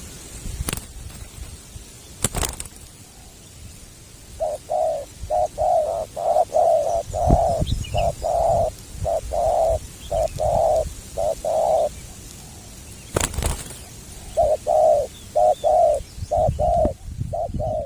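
Spotted dove (tekukur) cooing: a rhythmic run of short, low coos, a pause, then a second run near the end. A few sharp clicks sound before the cooing starts and once in the pause.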